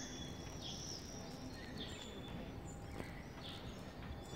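Small birds chirping, short calls about once a second, over a steady low outdoor background rumble.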